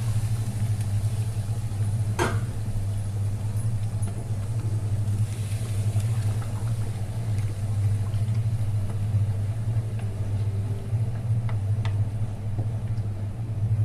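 A steady low hum runs throughout, under a wooden spatula stirring rice and hot water in a metal pot, with a few sharp clicks of the spatula against the pot, about two seconds in and near the end.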